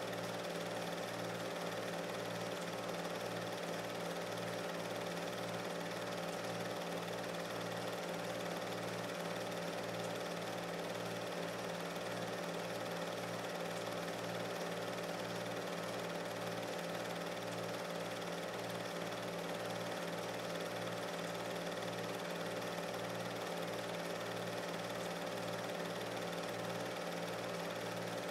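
Steady mechanical hum with a regular low pulsing, the running noise of a film projector playing back silent footage.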